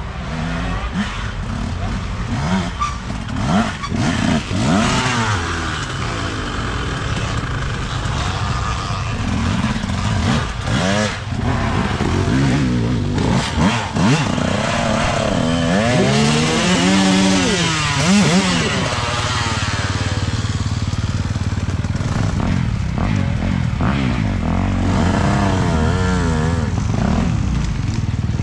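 Several off-road dirt bikes racing past, their engines revving up and down as the riders work the throttle. The loudest bike passes about two-thirds of the way in, its pitch rising and then falling away.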